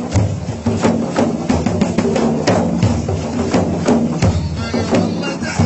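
Instrumental break in Arabic folk music: a steady, rhythmic drum beat over sustained low instrumental notes, with no singing.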